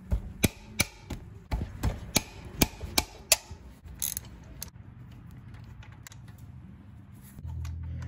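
Socket ratchet clicking as it turns out a 12 mm brake caliper mounting bolt: a series of sharp clicks, about three a second, stopping after about three and a half seconds, with two more a little later.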